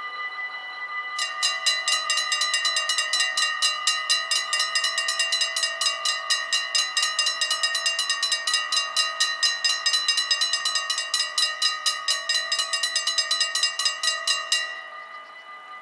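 Dutch level-crossing bell ringing in rapid, even strokes while the barrier arms lower, stopping abruptly once they are down: the warning that a train is approaching.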